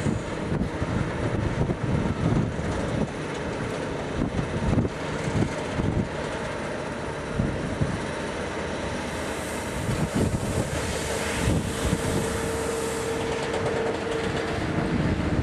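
Two diesel locomotives hauling a work train of yellow track-laying machines past at low speed: engines running and wheels rolling, with irregular low knocks. A steady tone joins about ten seconds in and fades near the end.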